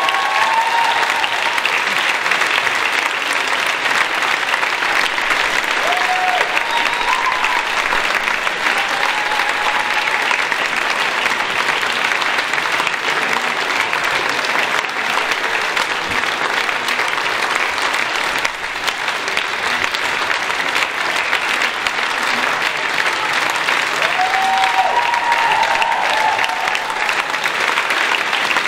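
Steady applause from a crowd, with a few short voices calling out over it now and then.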